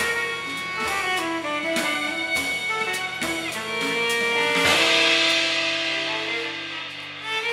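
Small jazz-leaning ensemble of tenor saxophone, violin, cello and drum kit playing live, with held and moving melodic lines over drums. About two-thirds through, the cymbals swell into a loud wash, then ease off near the end.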